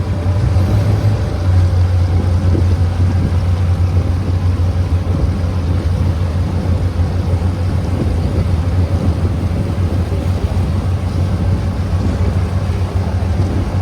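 Diesel engine of an abra water-taxi boat running steadily under way, a constant low drone with water and wind noise over it.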